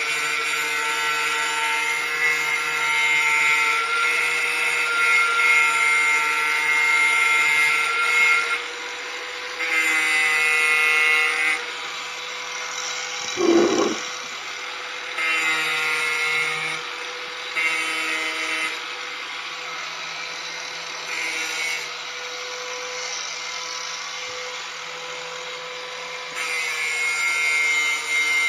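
Corded angle grinder sharpening a dull steel lawn mower blade. The motor whines steadily throughout, and the sound gets louder and harsher whenever the disc bites the edge. There is a long grinding pass at first, then short passes of a second or two with a single knock about halfway through, then a longer pass near the end.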